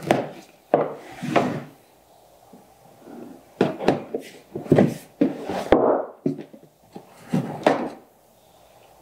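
Knife slitting the packing tape on a cardboard box, with the cardboard scraping and rubbing as the box is handled and turned on the table, in several short bursts.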